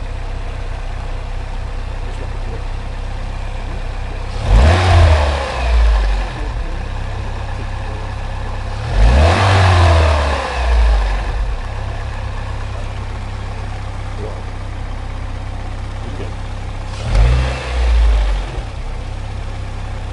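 Opel/Vauxhall Z22SE 2.2-litre four-cylinder petrol engine idling steadily, revved up and let fall back three times. It has a strange ticking noise that the owner suspects is a hydraulic lifter.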